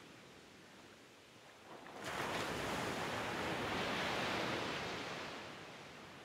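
Ocean surf breaking on a rocky shore: a faint wash of water, then a louder crash of a breaking wave comes in suddenly about two seconds in, holds for a few seconds, and falls away near the end.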